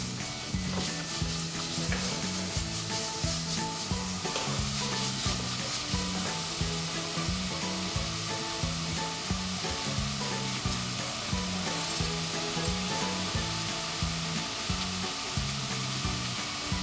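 Diced onion, sliced sausage and vegetables sizzling in hot olive oil in a cast-iron pot, with a spatula stirring and scraping through them.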